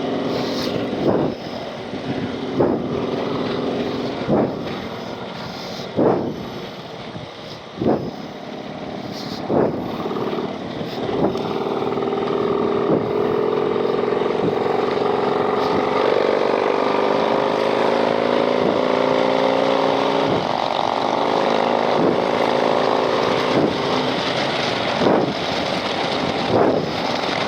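Harley-Davidson Street Glide V-twin running at cruising speed, with wind and road noise. Short thumps come every second or two in the first ten seconds. About halfway through, the engine note climbs slowly as the bike accelerates, then drops back.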